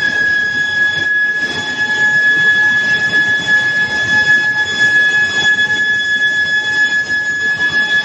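Induction billet heating furnace running: a steady high-pitched whine with fainter higher overtones from the induction coils and their power supply, over a rough, continuous machinery noise from the line.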